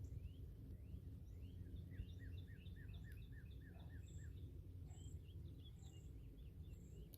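Faint birdsong: small birds chirping, with a quick run of short falling chirps about two seconds in, over a low steady outdoor background rumble.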